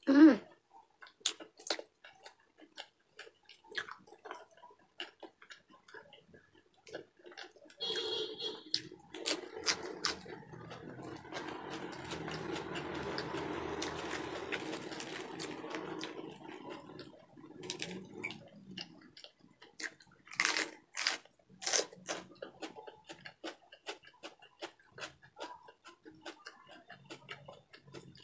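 Close-miked mouth sounds of a person eating chicken and pork adobo: wet chewing with many short clicks and lip smacks. A stretch of steadier rustling runs through the middle as a lettuce leaf is handled.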